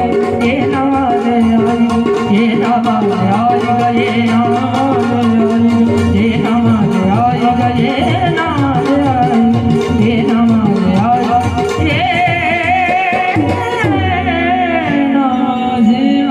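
Indian folk-style song music: a steady drone, rhythmic hand-drum percussion and a wavering melodic line that swells with vibrato about twelve seconds in.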